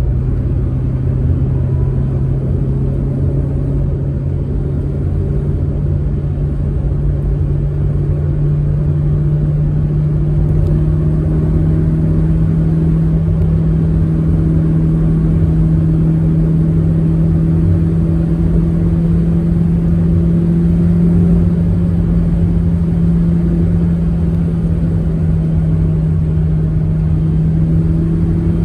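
Proton Saga MC2 car running at road speed, its engine note climbing slowly and steadily as the car gathers speed, then holding. A constant low road and tyre rumble runs under it.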